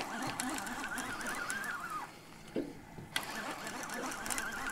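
Baitcasting fishing reel being cranked hard against a hooked catfish: a wavering gear whine with fine clicking. It stops about two seconds in, then starts again just after three seconds.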